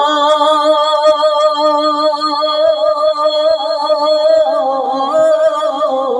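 Male singer holding one long, wavering note of a Bengali Islamic devotional song (gojol) into a microphone, ornamenting it with quicker turns in the second half before the pitch drops at the end.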